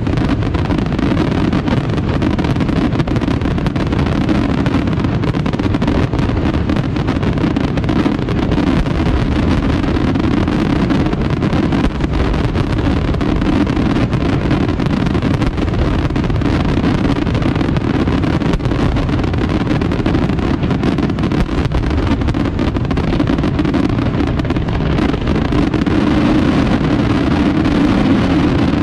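Aerial fireworks shells bursting in a dense barrage, so fast that the reports merge into a continuous rumbling roar: the display's closing barrage.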